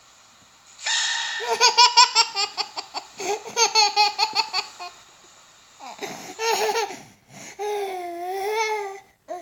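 Baby laughing in three bouts of rapid, pulsing belly laughs, then a long, wavering high-pitched squeal near the end.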